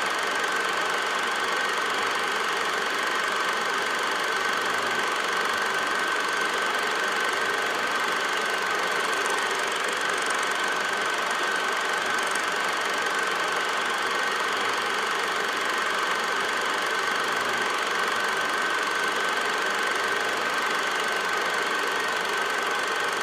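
Steady mechanical running noise with a constant high whine: an 8mm film projector's mechanism running.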